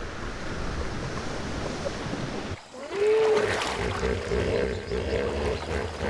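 Water sloshing and splashing, then, about halfway through, a hippopotamus gives one long, rough call that bends up in pitch at its start.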